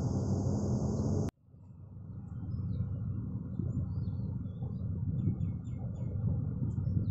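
Low, steady rumble of a diesel locomotive idling, with a high hiss. About a second in, the sound cuts out abruptly and then fades back up as a low rumble with birds chirping over it.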